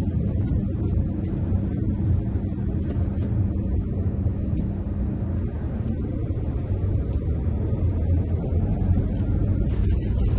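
Motorhome driving, heard from inside the cab: a steady low rumble of engine and road noise. Near the end the tyres go onto cobblestones and a light rattle joins in.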